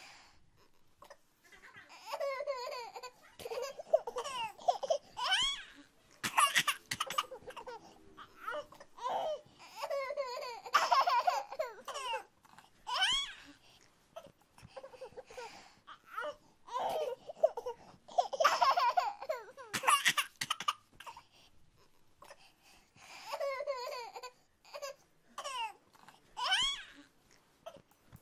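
A young child's high-pitched voice laughing and babbling in many short bursts, with brief pauses in between.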